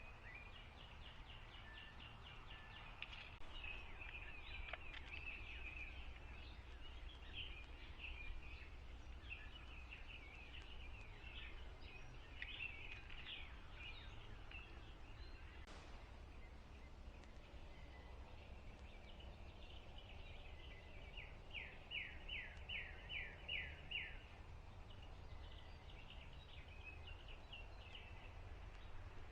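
Faint birdsong from small birds, with chirps and trills throughout. About three quarters of the way in comes a louder run of about eight falling notes, roughly three a second. A steady low rumble lies underneath.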